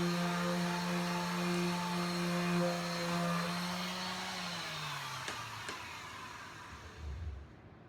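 Electric power sander running steadily with a hum and sanding hiss, then switched off, its motor winding down in pitch to a stop a little past halfway. A short low thump follows near the end.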